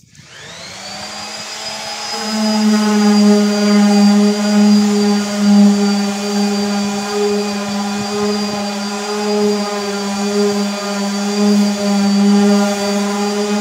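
Handheld electric sander switched on, its pitch rising for the first two seconds or so, then running at a steady whine as it sands a wooden surface.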